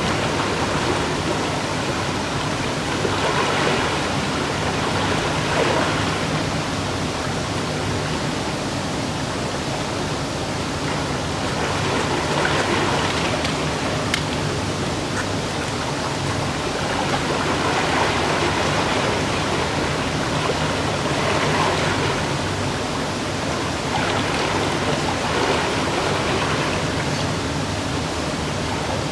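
Fast-flowing river water rushing in a steady wash, swelling and easing slightly every few seconds.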